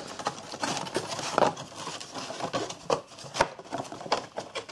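Cardboard boxes of cubic firecrackers being handled and slid against each other: irregular light knocks, clicks and scraping.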